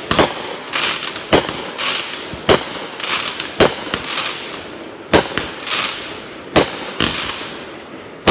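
Aerial fireworks going off: a series of sharp bangs, roughly one a second and unevenly spaced, with crackling between them.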